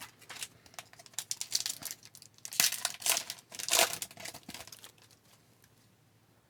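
A foil trading-card pack being torn open and its wrapper crinkled: a rapid, irregular run of crackles and rips for about five seconds, then it stops.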